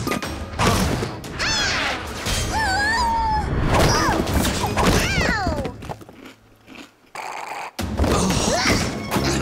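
Cartoon soundtrack: music with thuds and a crash as a pile of cardboard boxes tumbles down, mixed with short gliding cartoon sounds. The sound nearly drops out for about a second and a half shortly before the end, then comes back.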